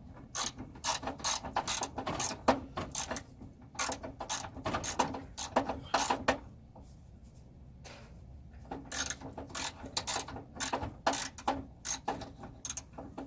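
Small ratchet wrench clicking in quick runs as a 10 mm fastener holding the wheel-well liner is turned out, with a pause of about two seconds in the middle.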